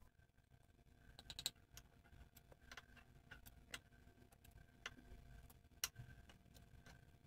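Faint, irregular light clicks of metal spoons against a bowl and frying pan as sugar crumb topping is spooned onto dough, about a dozen in all.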